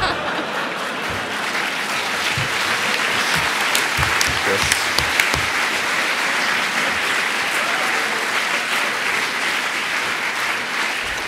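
Audience applauding, a steady wash of clapping that eases off near the end.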